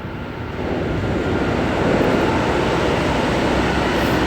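A loud, steady rumbling noise that swells about half a second in and then holds.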